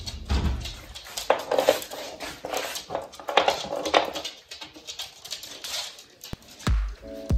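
Pembroke Welsh corgi puppy chewing a treat on the floor: irregular crunching and clicking bites with a few louder bursts. Near the end music with a deep thumping beat comes in.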